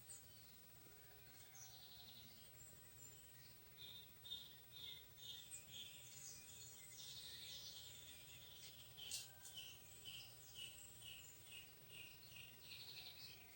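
Faint outdoor ambience with a bird calling in a series of short repeated chirps, about two a second, over a low steady background hum; a single sharp click about nine seconds in.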